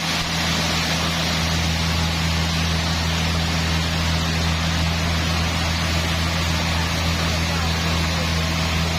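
Sawmill machinery running steadily: a constant low engine hum with an even hiss over it, no cutting strokes or changes.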